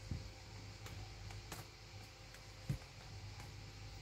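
Faint soft thumps and rustling from two kittens play-fighting on a blanket in a cardboard box, the loudest a low bump a little before three seconds, over a steady low hum.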